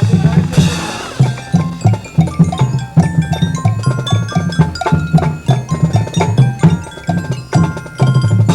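Marching band percussion section playing a fast rhythmic passage: drums in a driving pattern with mallet keyboards (xylophone, marimba, glockenspiel) and wood-block accents.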